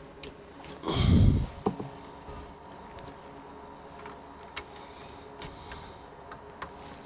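Handling noise as a camera arm is swung into place over the board: a dull low thump about a second in, a short, loud, high electronic beep, and scattered light clicks over a faint steady hum.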